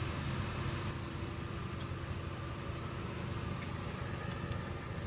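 A steady, even, low mechanical hum with a faint steady tone above it, like a running engine or motor.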